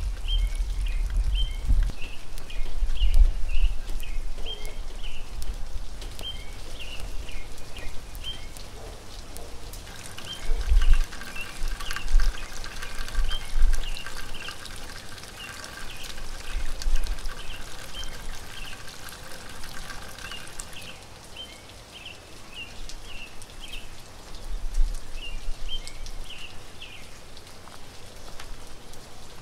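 Rainwater dripping and trickling after a shower, with small birds chirping in short, repeated calls throughout. Occasional low rumbles, and a faint steady hum from about ten to twenty seconds in.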